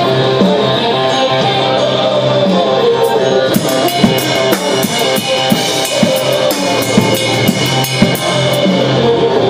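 Rock music with electric guitar and bass. A drum kit with cymbals comes in about three and a half seconds in, beating about twice a second.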